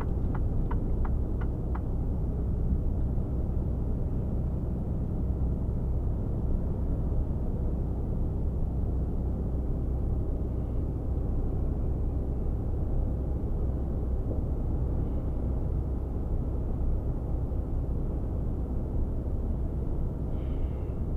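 Mercedes-Benz Actros 1848 truck heard from inside the cab at motorway cruising speed: the steady low drone of its inline-six diesel engine mixed with tyre and road noise. A light ticking, about three ticks a second, stops about two seconds in.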